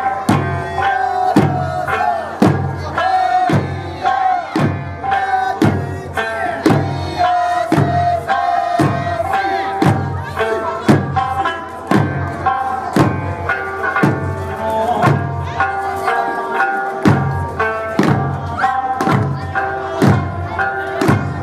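Eisa music: a sung Okinawan folk melody with large taiko drums struck on a steady beat.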